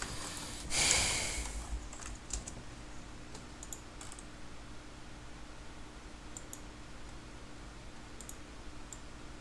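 Scattered sharp clicks of a computer mouse, some in quick pairs. About a second in there is a short, loud rush of noise that fades quickly, and a faint steady hum runs underneath.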